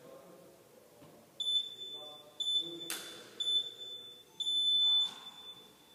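Gym workout timer counting down: three short, high beeps about a second apart, then one longer beep that signals the start. A sharp knock falls between the second and third beeps.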